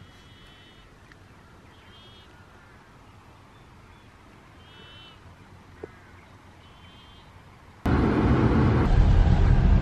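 A bird chirping faintly four times, short high calls over a quiet outdoor background. About eight seconds in it cuts suddenly to a loud, steady car noise with a strong low rumble.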